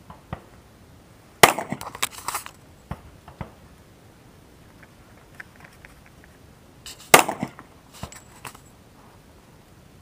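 Two loud pistol shots about six seconds apart, each followed by a short run of fainter cracks and echoes off the range berms.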